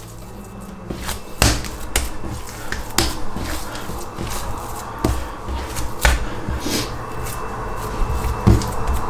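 Wet, 75%-hydration pizza dough being kneaded and folded by hand: sticky handling noise with several sharp smacks spread through it, as the mechanical working develops the gluten.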